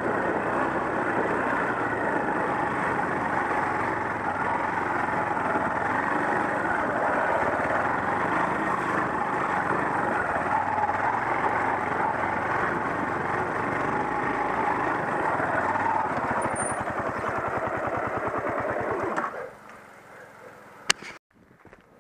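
Off-road motorcycle engine running steadily as the bike rides along a dirt forest trail, cutting out abruptly about three seconds before the end, followed by a single sharp click.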